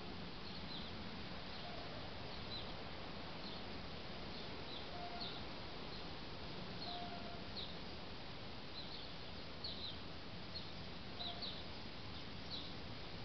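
Sparrows chirping: short, high chirps every second or so, over a steady hiss.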